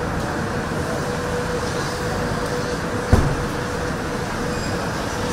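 Steady machinery noise of a car assembly hall, with a thin steady tone running through it, and a single thump about three seconds in.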